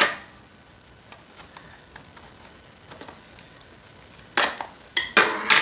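Scissors cutting into a small cardboard product box: a few short, sharp snips near the end, after a stretch of faint ticks from handling the box.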